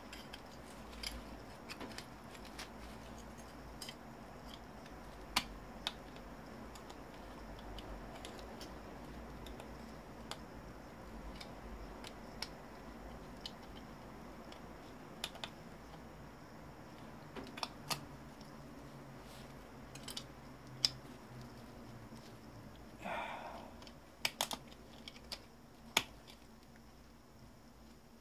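Sparse light clicks and taps of a hand tool on the metal and plastic parts of an old CRT monitor, as a fastener is turned at without coming loose, over a faint low hum. A short scrape comes about 23 seconds in.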